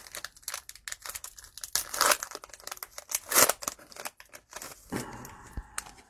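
Cellophane wrapper of a trading card pack crinkling and tearing as it is opened, in a run of sharp, irregular crackles.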